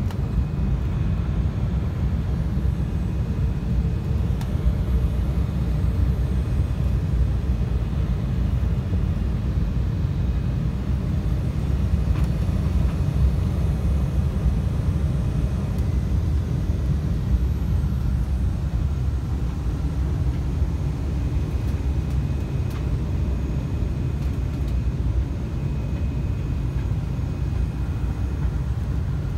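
Airliner cabin noise during the descent to landing: a steady low rumble of jet engines and rushing air, with faint steady tones above it, heard from a window seat inside the cabin.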